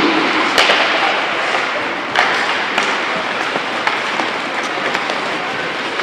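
Ice hockey play on a rink: a steady scraping hiss of skates on ice, with a few sharp clacks of stick and puck, the clearest about half a second in and just after two seconds in.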